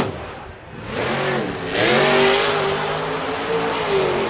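Grave Digger monster truck's supercharged V8 engine revving hard. Its pitch climbs about a second in, holds high, and dips briefly near the end.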